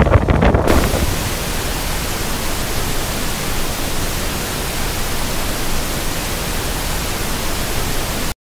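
Wind buffeting the microphone over the roar of the falls' water. Less than a second in it gives way to a steady, even rushing hiss that stays unchanged until it cuts off abruptly at the end.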